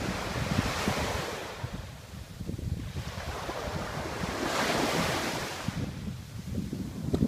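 Sea waves washing onto the shore in two surges: one at the start that fades by about two seconds in, and a stronger one about four to five seconds in. Wind buffets the microphone with an uneven low rumble throughout.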